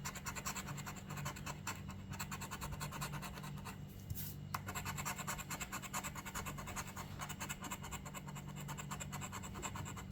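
Rapid scraping strokes rubbing the coating off a lottery scratch-off ticket, with a short pause about four seconds in.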